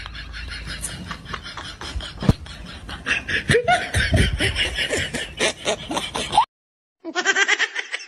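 Laughter in quick repeated pulses, cut off abruptly about six and a half seconds in, then after a brief gap a second burst of laughter starts.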